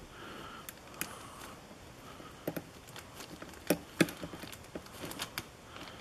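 Sparrows short hook pick scraping and tapping the pin stack of a brass padlock held under tension: a dozen or so small, scattered clicks as individual pins are probed. A bag rustles faintly near the lock.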